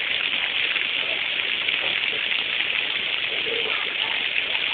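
Waterfall's falling water, a steady hiss that holds even throughout.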